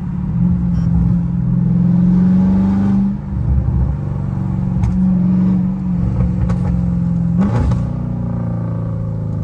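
Dodge Charger Scat Pack's 392 HEMI V8 with catless mid-pipes, droning through its loud exhaust while cruising, heard from inside the cabin. The note dips briefly about three seconds in.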